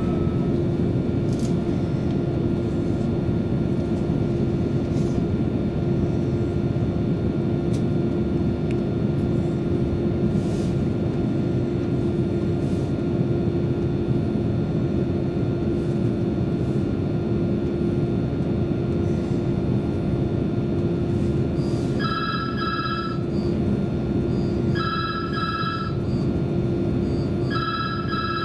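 Interior running noise of a CAF Class 331 electric multiple unit at speed: a steady rumble with a constant hum. Near the end a trilling ring like a telephone sounds three times, about three seconds apart.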